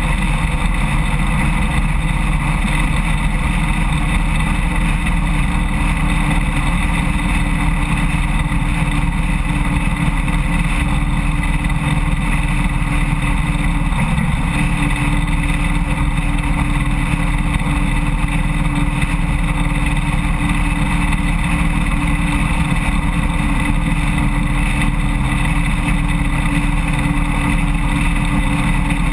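Harley-Davidson Road King motorcycle's V-twin running at a steady cruising speed, with the hum of its tyres on the bridge's open steel-grid deck. The drone is loud and even, with a steady hum that shifts slightly about halfway through.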